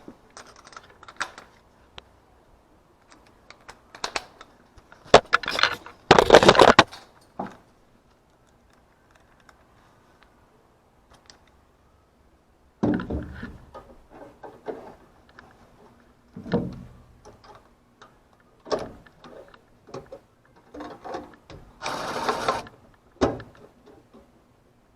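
Intermittent handling noises: scattered clicks, knocks and rattles, with a loud rustling burst about six seconds in and another about twenty-two seconds in.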